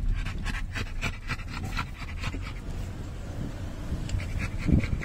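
Pit bull-type dog panting in quick, even breaths, which fade in the middle and pick up again near the end, over a low steady rumble.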